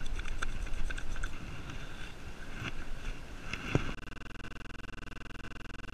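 Wind rumbling on a GoPro microphone, with light clicks and rustling as cold, just-washed hands are rubbed together. About four seconds in, it cuts abruptly to a steady, rapidly pulsing buzz.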